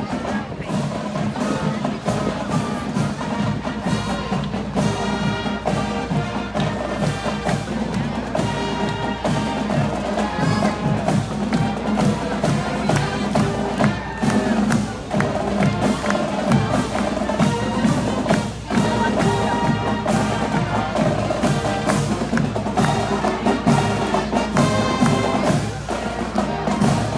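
Marching band playing: horns carrying a tune over a steady drum beat.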